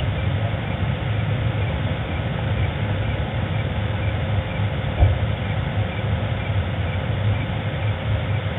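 Steady low rumble and hum of the night-time camera audio, with a faint high chirp repeating evenly above it and one dull thump about five seconds in.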